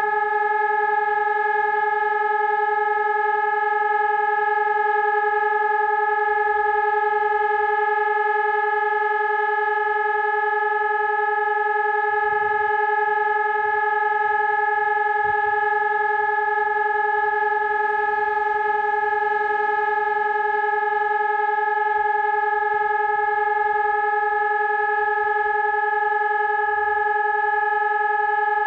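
Telegrafia Pavian 1800 electronic siren sounding a steady, unchanging continuous tone: the Czech siren test signal, a routine function check of the siren.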